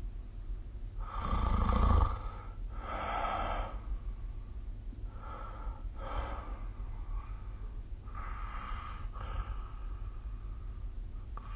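A sleeping person snoring, about three slow breaths, each drawn in and let out with a noisy rasp; the first, about a second in, is the loudest and deepest. A steady low hum runs underneath.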